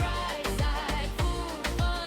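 Upbeat pop song with a steady kick-drum beat, about two beats a second, and a sung vocal line.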